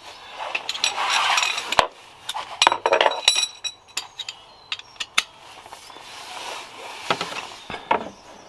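Steel socket tools clinking as sockets and extension bars are handled and fitted together: a run of sharp metallic clinks, some with a brief high ring, after a short rustle.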